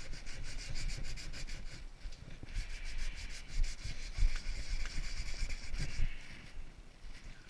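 Coarse-grit sandpaper rubbed by hand over a wooden board in quick back-and-forth strokes, with a short pause about two seconds in.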